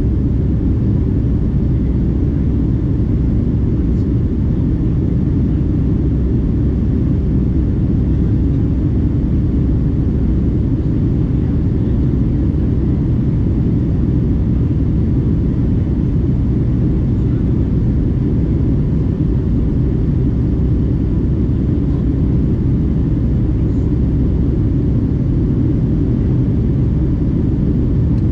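Steady low rumble of a Boeing 757-200 jet airliner in flight, its engines and airflow running evenly, with faint steady whines above the rumble.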